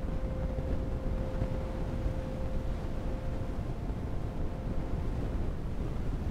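Steady low rumbling room noise, with a faint held tone that fades out a little past halfway.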